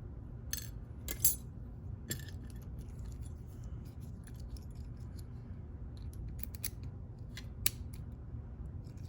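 Small metallic clicks and taps from handling a lock and its parts with tools, a sharper click about a second in and another near the end, over a low steady hum.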